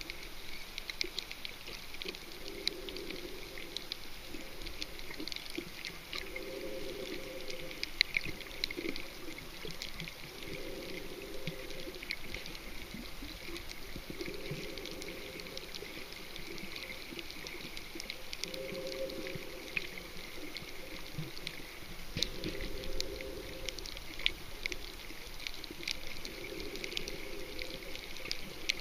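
Underwater sound on a coral reef: a bubbling swell about every four seconds, like a swimmer's breathing, over a constant crackle of small clicks.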